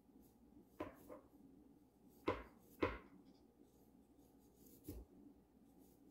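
Knife chopping on a cutting board in a few slow, irregular strokes, the two loudest about half a second apart midway.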